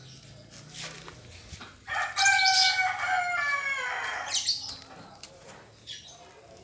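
A rooster crowing once, one long harsh call of about two and a half seconds that drops slightly in pitch at the end.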